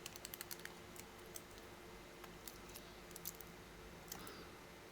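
Faint, scattered small clicks and crackles of heat tape being handled and pressed onto the battery's contact points, a quick run of them in the first second and a few more later.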